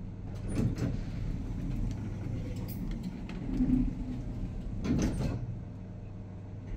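Schindler lift doors sliding, with two brief rushes, about half a second in and about five seconds in, over a steady low hum.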